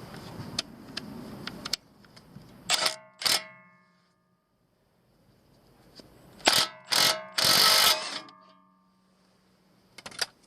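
Metal hand tools knocking together. Several sharp clanks each leave a brief metallic ring, with a short rasp among them and light clicking and handling rumble at the start.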